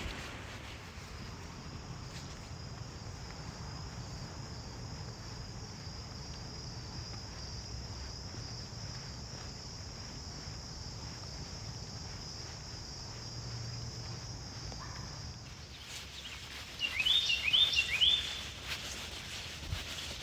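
Crickets or similar insects keep up a steady high-pitched drone that stops abruptly about three-quarters of the way through. Shortly after, a bird gives a quick run of sharp chirps, louder than the insects.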